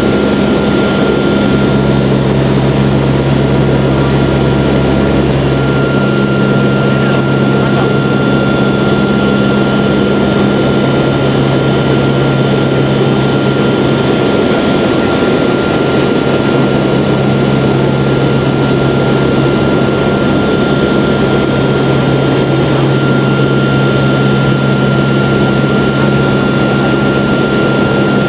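Loud, steady drone of a transport aircraft's propeller engines heard from inside its cargo hold, with a constant high whine above the drone. A deep hum underneath drops away about six seconds in.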